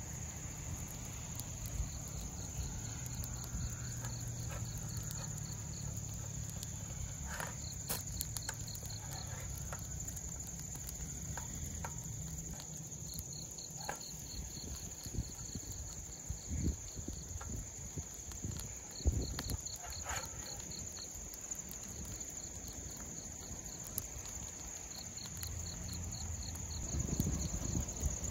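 Crickets chirping in short trains of rapid pulses every few seconds over a steady high insect drone, with a low rumble underneath. A few light clicks and taps of a wooden spatula against a frying pan come in between.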